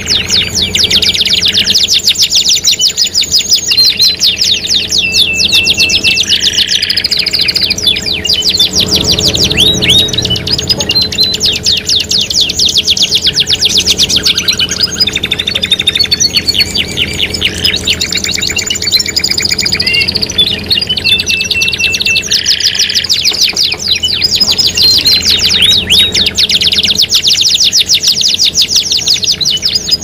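Several songbird recordings layered together: a canary's fast rolling trills running almost without a break, mixed with chirps and short high whistled notes from other small songbirds.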